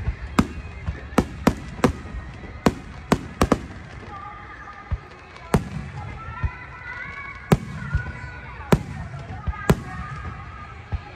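Aerial fireworks bursting: a quick run of about nine sharp bangs in the first few seconds, then single bangs every second or two.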